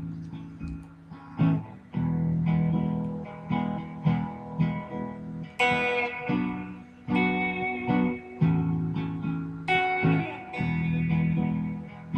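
Electric guitar being played: ringing picked notes and chords, with strong, bright strums about one and a half, five and a half, and ten seconds in.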